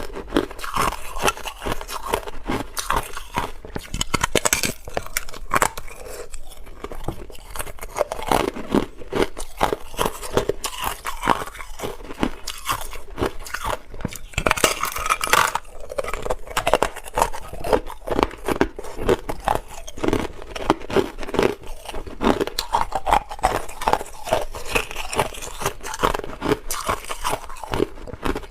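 Hard clear ice being bitten and chewed close to the microphone: a continuous run of irregular, crisp crunches and cracks.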